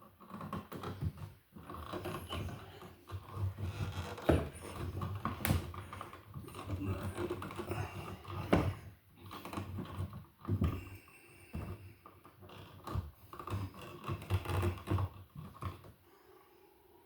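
Irregular handling noise from electrical wiring work: wires and a plastic wire nut being tugged and worked by hand, with scattered small clicks, taps and rubs, and a few sharper ticks.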